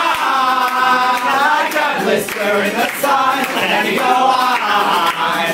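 Loud live singing by several voices together: a male lead singer belting the melody with a woman singing along, over a strummed acoustic guitar.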